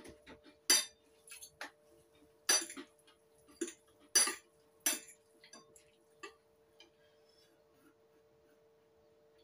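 Metal fork and spoon clinking against a bowl while noodles are tossed and mixed: a series of sharp clinks, the loudest about one, two and a half and four seconds in, stopping after about six seconds. A faint steady hum underneath.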